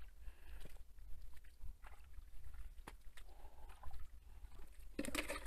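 Faint water sloshing with scattered small splashes, louder near the end.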